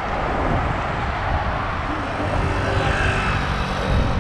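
Steady city street ambience: the even noise of passing traffic.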